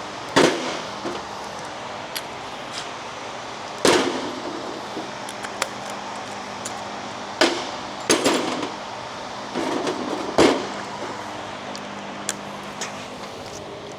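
Metal tools and engine parts knocking and clanking as they are handled and set down during an engine teardown: a string of separate sharp metallic knocks, some in quick pairs, over a steady low hum.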